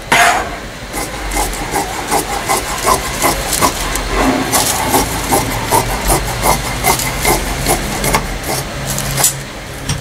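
Large tailor's shears cutting through folded tracksuit fabric and the paper pattern laid on it: a steady run of sharp snips, about two or three a second, with the rustle of paper.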